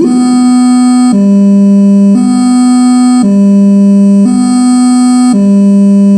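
Electronic siren amplifier sounding a two-tone hi-lo alarm through its speakers: a loud, buzzy tone switching between a higher and a lower pitch about once a second.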